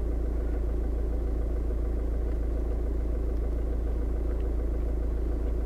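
Steady low rumble and hum inside the car's cabin.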